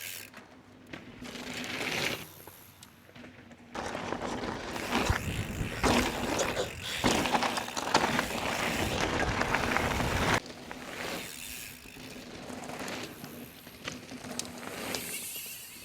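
Mountain bike being ridden on a dirt trail: tyre noise, rattles and wind on the microphone. It is loudest from about four seconds in until it cuts off abruptly at about ten seconds.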